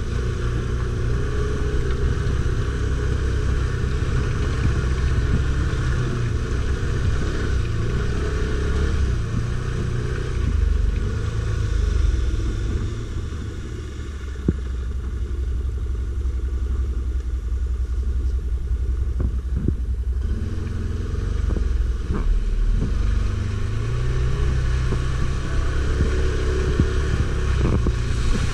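Stels Guepard 850 ATV engine running under way off-road, revving up and down as the throttle changes and easing off briefly about halfway through. A few sharp knocks sound over it in the second half.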